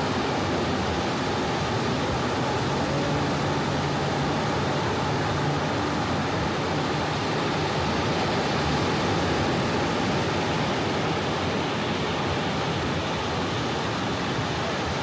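Small ocean waves washing steadily onto a beach: an even, unbroken wash of surf. A faint low hum comes in for a few seconds in the middle.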